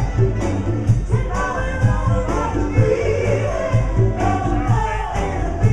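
A band playing a song: singing voices carry the melody over a steady drum beat and bass.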